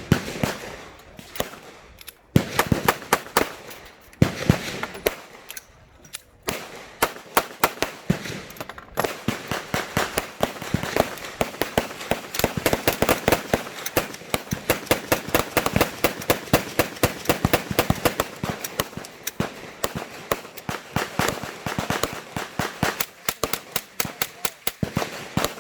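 Gunfire: a few separate shots, then from about seven seconds in a dense, irregular run of shots, several a second, overlapping as if more than one gun is firing.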